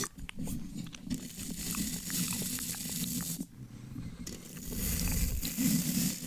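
Wet mouth sounds close to the microphone, small slow clicks and smacks, layered over a steady hiss of brushing and scratching on the mic. The hiss drops out for a moment a little past halfway.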